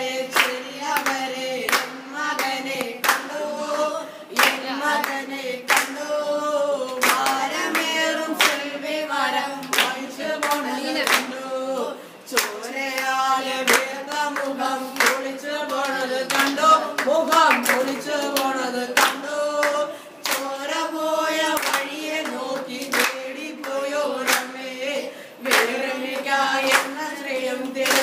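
A small group of boys singing together, with hand claps keeping a steady beat.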